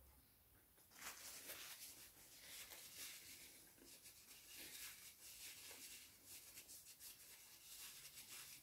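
Faint close-miked chewing of crisp fried snacks (samosa and onion bhaji), a steady run of small crackly, crunchy mouth sounds starting about a second in.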